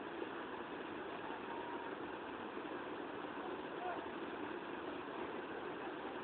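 Steady rushing of water pouring over a waterfall, an even, unbroken roar.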